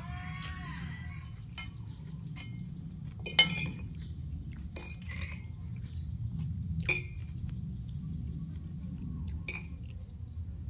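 Metal fork and spoon clinking against a china plate as noodles and vegetables are stirred and scooped. There are about seven sharp clinks at uneven intervals, the loudest about three and a half seconds in, over a low steady hum.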